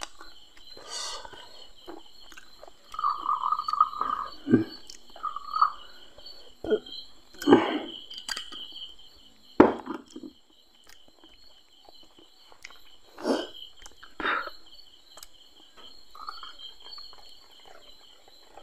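Steady chirping of crickets, over which a glass bottle and drinking glass are handled on a table: a few sharp knocks and clinks, whisky poured into the glass, and water poured in from a plastic bottle near the end.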